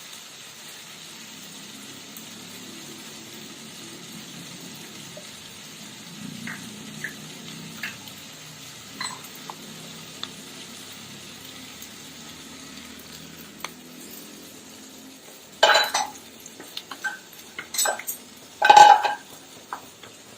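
Kitchen utensil sounds over a faint steady sizzle from the pan: a spoon stirring and clinking in a bowl as water, masala and cornflour are mixed, then a few loud metal knocks and clatters near the end.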